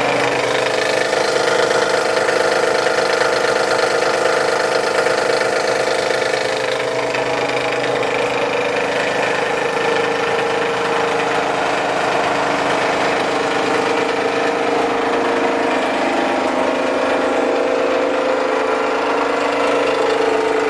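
PC250 plastic crusher running, its electric motor and cutting rotor giving a continuous steady hum with a clear steady tone.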